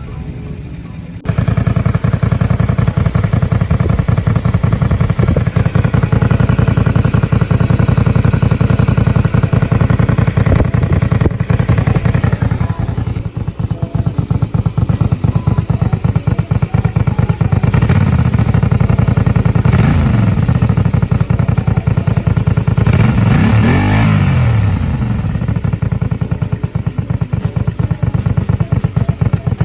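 Honda VTZ250's V-twin engine running loud through its stock muffler, which has two small holes drilled in it. It jumps up in level about a second in, and the revs rise and fall briefly twice in the second half.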